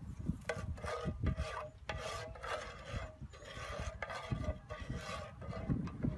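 Spatula scraping back and forth across a nonstick frying pan in a series of uneven strokes, with a faint ring from the pan.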